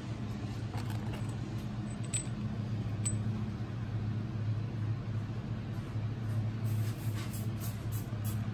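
A steady low hum of some running machine, with a couple of faint light metallic clicks about two and three seconds in as pushrods are handled and set into a diesel engine's cylinder head.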